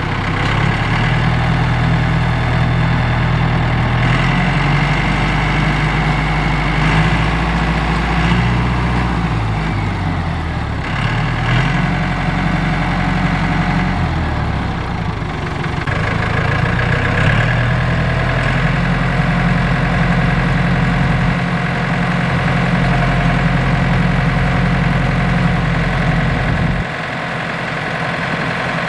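Yanmar EF725T tractor's diesel engine running steadily under load while driving a mini round baler that is baling rice straw, with the baler's chains and rollers running along with it. The engine note shifts in pitch a few times, and its low drone drops about two seconds before the end.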